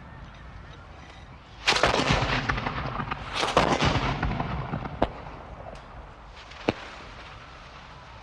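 Rifles firing at a range: a ragged volley of overlapping shots starting about two seconds in, a second volley a moment later, each trailing off in echo, then two single sharp shots spaced apart.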